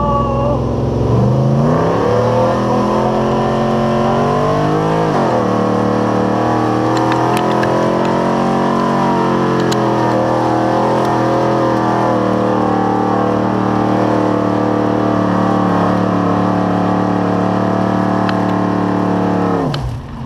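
The 2015 Nissan Titan's 5.6-litre V8 running at full throttle under heavy load, pulling a truck-pull sled. The revs climb for about five seconds, drop suddenly, then hold high and steady. Near the end the engine falls away abruptly as the throttle is released.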